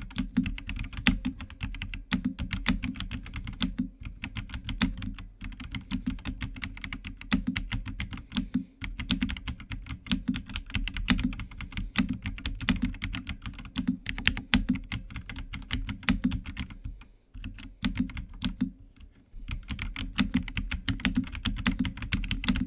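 Fast, steady typing on a Keychron C3 Pro mechanical keyboard with hot-swappable switches: a dense run of keystroke clicks with a deep low body under each press. The typing thins out twice about three-quarters of the way through.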